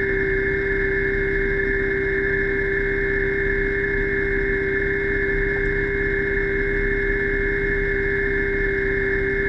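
Diver propulsion vehicle (underwater scooter) electric motor running at a steady speed underwater, a constant whine over a low rumble.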